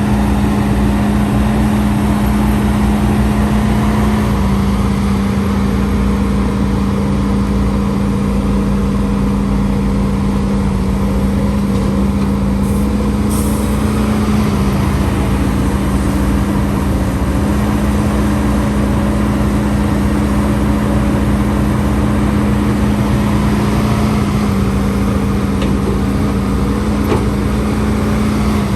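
HIDROMEK HMK230LC excavator's diesel engine running steadily under working load, its hum dipping and rising slightly in pitch a few times as the load changes. A brief high hiss about 13 seconds in.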